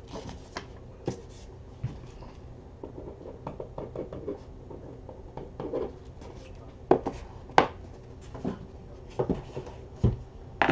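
Trading cards and their packaging being handled on a desk: scattered light clicks, taps and scrapes, with a few louder knocks about seven seconds in and near the end.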